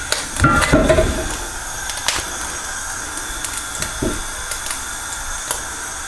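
Steady hiss of a gas hob burner heating oil in a seasoned wok. A metal ladle clanks against the wok a few times about a second in, with lighter clicks later.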